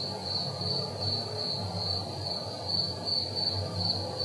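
Crickets chirping in a steady, pulsing high trill over a low background hum.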